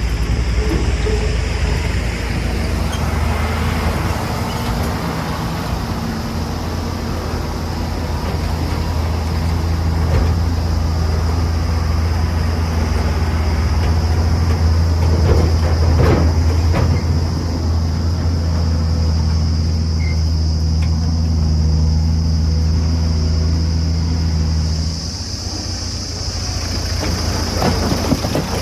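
Heavy diesel engine running at a steady speed, with a thin high whine over it and a few sharp knocks about midway. The deep engine note drops away about three seconds before the end.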